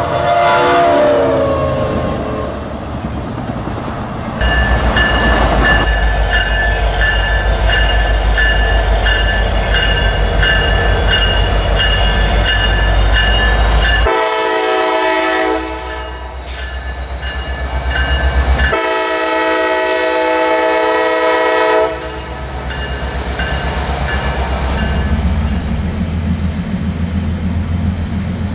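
Norfolk Southern diesel freight locomotives passing: the first locomotive's horn falls in pitch as it goes by, then the train rumbles past with a ringing beat about twice a second. A second locomotive sounds two long horn blasts, and its train rolls on past with wheels clicking over the rail joints.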